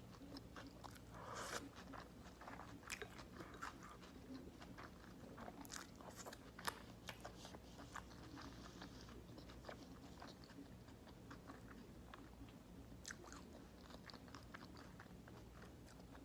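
Close-miked eating: bites and chewing with crisp crunches, busy for the first several seconds and thinning out to occasional crunches later.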